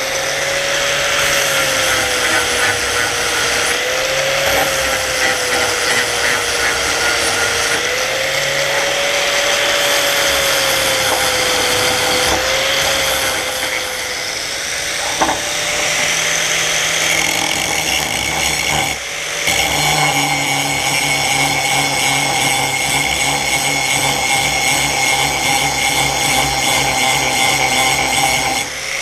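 Grinder with a sanding wheel running continuously, smoothing a brazed repair on a cast-iron lathe taper-attachment part; the motor whine wavers in pitch as the work is pressed to it, with a brief break about two-thirds of the way through.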